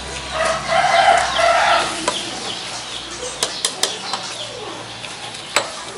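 Potatoes being mashed and stirred in a stainless steel pot, the plastic masher and spoon knocking against the pot in a few sharp clicks. A chicken calls loudly in the background about half a second in, lasting over a second.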